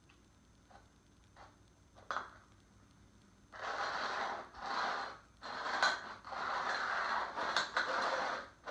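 Small terracotta flower pots slid and shuffled by hand across a wooden floor: a few light knocks, then from about three and a half seconds in a run of scraping strokes with brief gaps between them.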